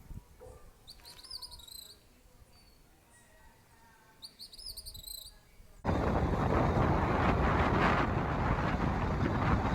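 Bird chirping in a quiet setting: short, high, arching notes repeated in quick runs. About six seconds in, an abrupt cut to a much louder, steady rushing noise that lasts to the end.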